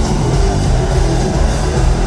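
Rock band playing live through a concert PA, loud and dense, with a steady drum beat.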